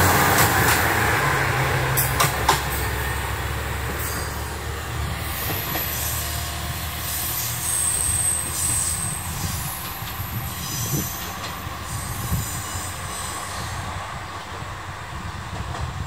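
Tenryu Hamanako Railway TH2100 diesel railcar pulling away from the station: its engine hum and the clack of its wheels over the rail joints fade steadily as it recedes. A brief high squeal comes about eight seconds in.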